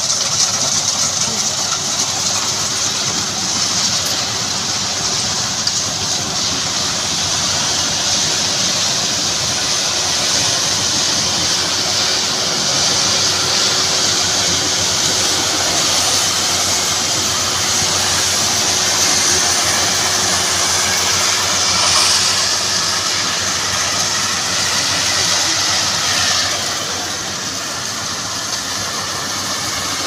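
FMWorld rice combine harvester running steadily as it cuts and threshes rice: a continuous engine and machinery drone with a strong hiss over it, easing off slightly near the end.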